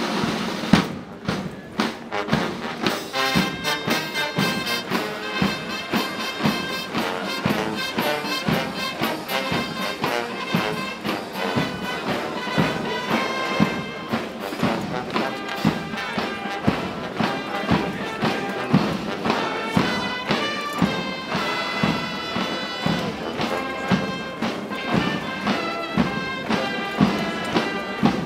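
Brass march music with a steady beat.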